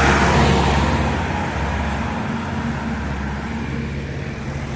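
Vintage tractor engine running as the tractor drives past, its steady hum slowly fading as it moves away.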